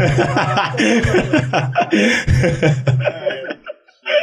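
Several men laughing together, dying away shortly before the end.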